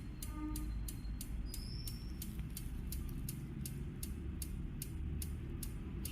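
A motorcycle's turn-signal flasher ticking: an even, high, sharp tick about three times a second, over a low steady hum.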